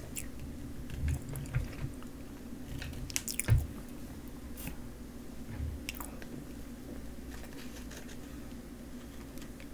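Wooden chopsticks pulling apart a microwave-warmed Choco Pie: soft squishy tearing with a few knocks and short clicks, the strongest about three and a half seconds in, over a steady low hum.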